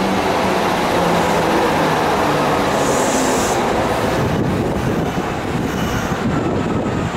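Kintetsu Minami-Osaka Line electric train running alongside the platform, a loud rumble with a motor whine falling in pitch over the first couple of seconds. A brief high-pitched sound comes about three seconds in, and the noise eases a little after about five seconds.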